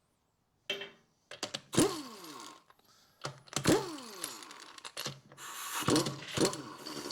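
Already-loosened wheel nuts being undone and taken off a car's rear wheel: repeated metallic clicks and clatter, with several short whirring sounds that fall in pitch.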